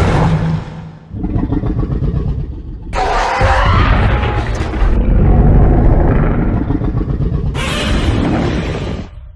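Kaiju-battle sound effects: a heavy, dense rumble of a beam blast and monster roars, with sudden louder entries about three seconds in and again near the end.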